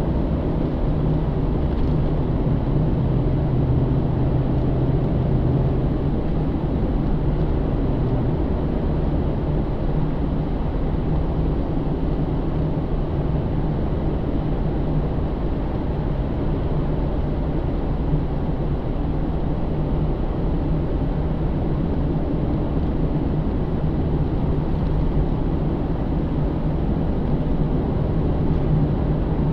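Inside the cabin of a 2009 Pontiac G8 GT cruising: the 6.0-litre V8 runs at a steady low drone under continuous road and tyre noise, its note a little stronger in the first few seconds before settling.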